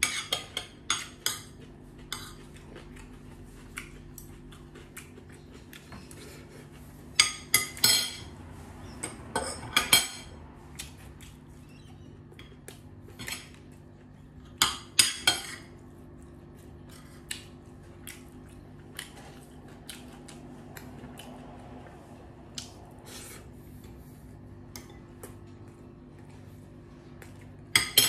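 Metal fork and spoon clinking and scraping against a ceramic plate while eating, irregular clinks in short clusters with quieter gaps between.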